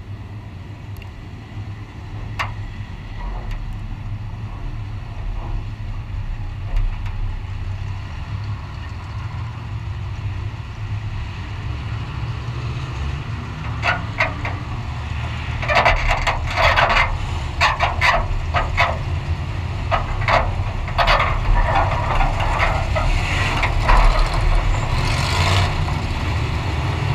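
A low, steady engine idle, with clanking and rattling of metal from about halfway through as the wrecked race car is hooked up to a tow truck.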